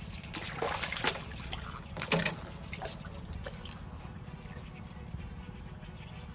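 A hooked fish splashing and thrashing at the water's surface as it is drawn in on the line. Several sharp splashes come in the first three seconds, then quieter dripping and lapping water over a steady low rumble.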